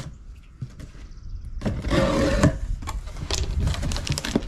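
Cardboard box being opened by hand: a long rasping scrape of cardboard about two seconds in, then a run of knocks and taps as the flaps are pulled open and the contents are handled.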